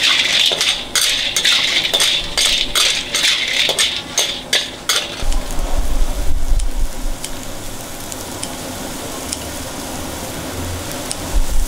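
Sea snails sizzling in chili sauce in a hot wok, a metal ladle stirring and clinking against the wok. After about five seconds the stirring stops and a quieter steady sizzle goes on, with a few faint snips of scissors cutting spring onions.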